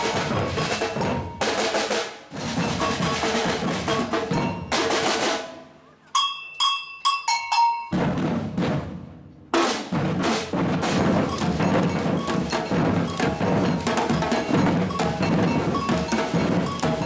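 Batucada drum ensemble playing: surdos, snares and other drums together. The drumming stops about five seconds in, a handful of high ringing strikes sound alone, and the full ensemble comes back in a couple of seconds later.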